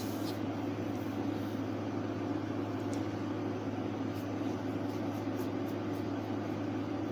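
Steady low hum under a soft hiss of background noise.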